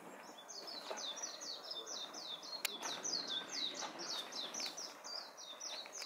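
A small bird calling a long, rapid run of high, falling notes, about five a second, with a single sharp click about halfway through.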